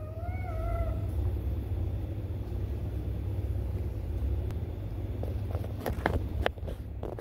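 A cat meows once, a single wavering call of about a second, over a steady low rumble. Several sharp clicks or taps come near the end.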